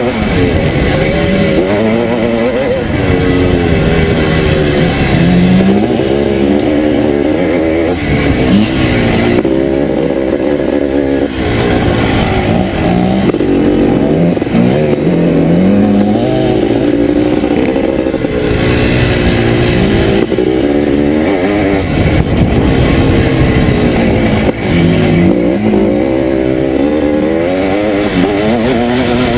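1981 Can-Am MX-6B 400's two-stroke single-cylinder engine, heard from on board, revving up and dropping back again and again as the bike is ridden hard, its pitch climbing with each burst of throttle and falling at each gear change or roll-off.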